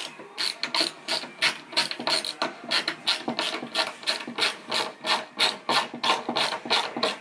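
A run of short, sharp strokes, about three a second, from a hand tool working at the ceiling: plasterboard being screwed into place by hand.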